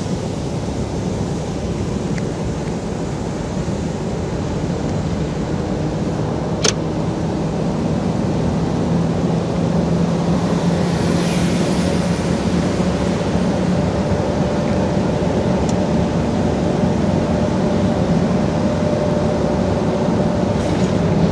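Mercedes-Benz Actros 1844's V6 diesel engine pulling steadily under way, heard from inside the cab as a low drone that grows gradually louder. A single sharp click comes about a third of the way in.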